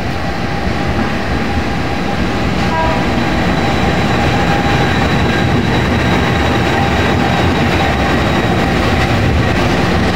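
GE CC 206 diesel-electric locomotive running light past at close range: its diesel engine running with the rumble of wheels on the rails, getting louder over the first few seconds as it draws level and then holding steady.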